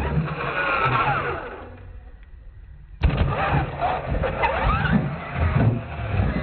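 Radio-controlled monster truck running on dirt, its motor whine rising and falling as the throttle is worked. There are thuds as it lands and tumbles onto its roof in the second half.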